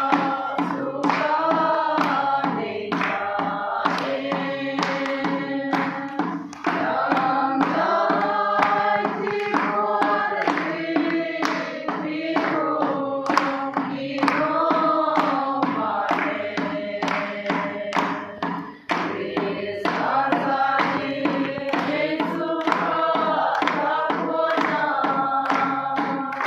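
A small group of men and women singing together in unison, with steady hand clapping on the beat.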